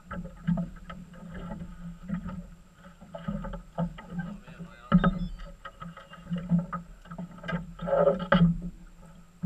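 Small waves slapping against the hull of a drifting fishing boat: irregular knocks every half second to a second, with a busier run of slaps about eight seconds in.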